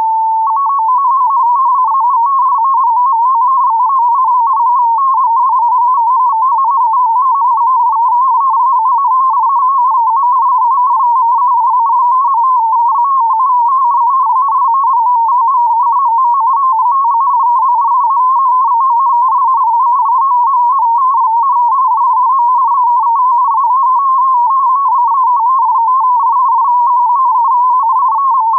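MFSK digital data transmission centred around 1000 Hz. A short steady tone gives way, about half a second in, to a rapid warble of single tones hopping up and down within a narrow band: a digital text signal meant to be decoded by software.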